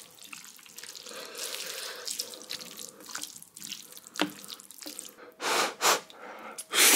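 Spicy ramen noodles being mixed in their broth: wet sloshing with small irregular clicks. A few louder wet bursts come about five and a half seconds in and again near the end.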